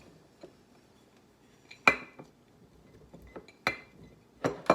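Glass mason jar being filled with sliced cucumbers: a few separate sharp clinks and knocks against the glass, about two seconds apart at first, then two close together near the end.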